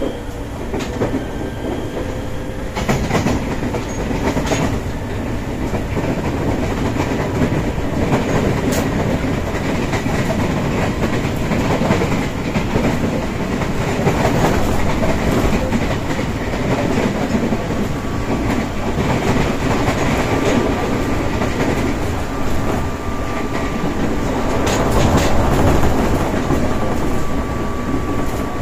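Running noise inside motor car MoHa 203-122 of an ex-JR 203 series chopper-controlled electric multiple unit: a steady rumble of traction motors and wheels on rail. Wheels click over rail joints now and then, and a faint steady whine comes in about two-thirds through.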